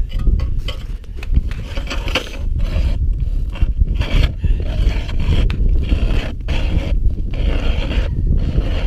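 Hand ice auger being cranked through thick lake ice, its blades scraping and crunching in the ice with an uneven, repeating rhythm of turns.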